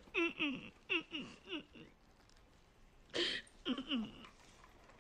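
A woman sobbing: short wailing cries that fall in pitch, in two bursts, the second about three seconds in.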